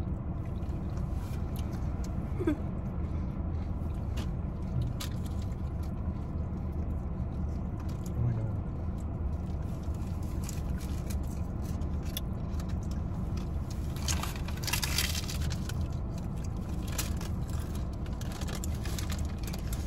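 Steady low rumble inside a stationary car, with scattered crinkles of a paper food wrapper and crunchy bites into a tortilla wrap; a longer spell of wrapper rustling comes about fourteen seconds in.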